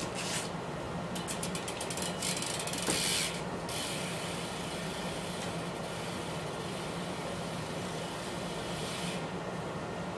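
Steady hum and hiss. In the first four seconds a BMX bike is ridden on a hard floor: a run of rapid ticking from its rear hub, then a louder scraping rush.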